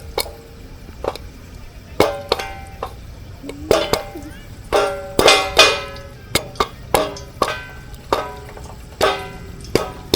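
Music: a plucked string instrument playing a series of sharply struck notes and chords that ring and die away.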